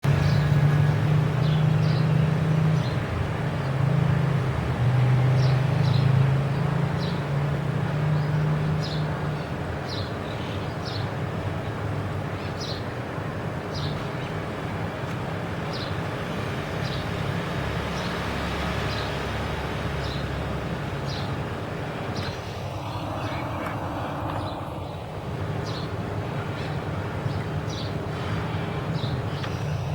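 A small bird chirping repeatedly in short high notes, about one a second, over a steady low hum of distant traffic; a louder rush of noise swells and fades about three-quarters of the way through.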